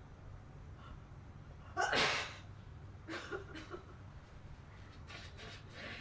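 A girl sneezes once, loudly, about two seconds in. Quieter short breathy sounds follow, and a run of brief ones comes near the end.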